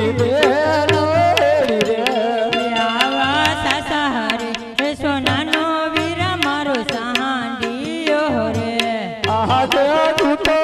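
Live Gujarati Ramamandal devotional music: a singing voice with a wavering melody over drum accompaniment, with frequent sharp percussion strikes.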